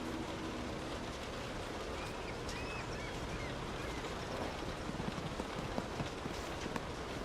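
Steady rain heard from indoors, an even hiss with individual louder drops ticking more often in the second half.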